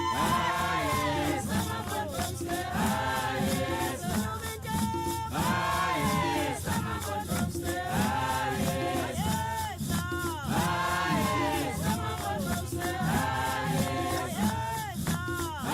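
Music: a group of voices singing together over a steady beat with shaker-like percussion.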